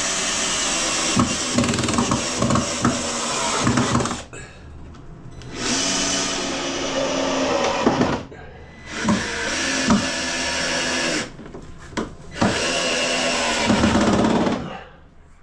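Red cordless drill run in four bursts of about two seconds each, working into the timber of a kitchen plinth frame as it is fixed in place.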